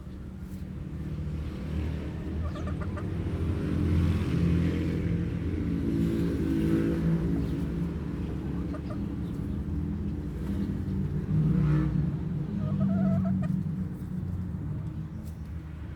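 Backyard chickens clucking now and then over a steady low rumble, like a motor or passing vehicle, that swells in the middle and again near the end.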